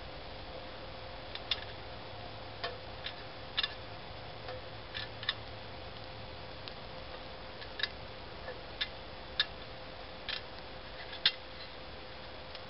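Irregular sharp ticks and small pops, roughly one or two a second with no steady rhythm, from a small camp cooking setup heating up: an alcohol burner under a thin stainless kettle beside a stove cooking soup.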